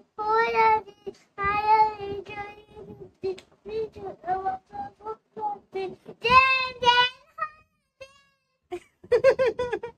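A small boy singing in a high voice, holding long notes at the start and again about six seconds in, with short quick syllables in between and a brief pause near the end.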